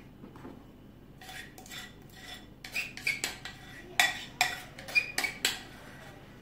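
Metal spoon scraping and clinking against a ceramic mixing bowl while scooping out thick cake batter: a run of scrapes and sharp clinks with a brief ring, the loudest ones in the second half.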